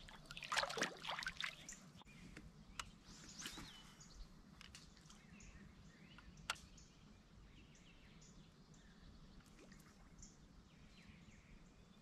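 Water splashing and dripping beside a kayak in the first two seconds, as a just-caught bass is let go, then a quiet lake with faint, scattered bird chirps and a single sharp click about halfway through.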